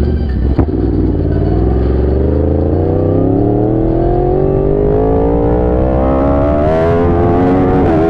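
Yamaha R1 sport bike's inline-four engine under hard acceleration, its pitch climbing steadily for several seconds, with a short dip in pitch near the end. A sharp click about half a second in.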